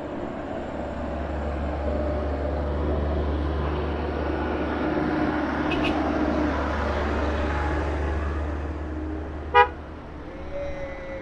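Road vehicles running past with steady engine and tyre noise that swells and eases off, then one short, loud car-horn toot near the end.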